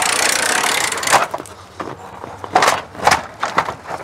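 Manual A&E 8500 RV patio awning being rolled in, its roller tube and arms rattling steadily until about a second in. Then a few separate knocks and clacks as the awning arms are handled.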